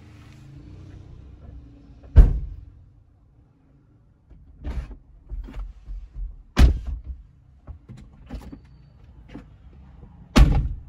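Tesla car doors and trunk lid being shut one after another: three heavy thumps about four seconds apart, with lighter clicks and knocks between them.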